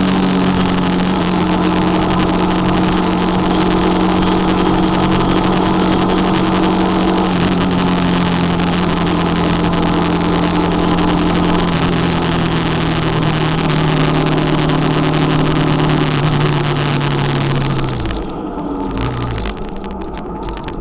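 Motorcycle engine running at a steady cruise under loud wind rush. The engine pitch sags slowly, and about 18 seconds in the throttle closes: the engine note drops and the wind rush dies away as the bike slows.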